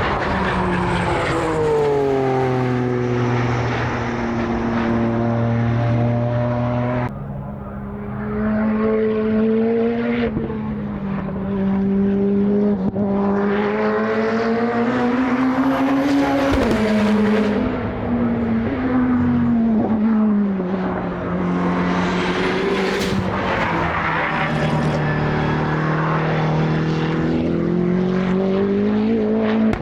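Time attack race car engines running hard on track, the engine note falling and rising as the cars slow and accelerate through gears. The sound breaks off abruptly about 7 seconds in and again around 10 seconds, as one car's sound gives way to another's.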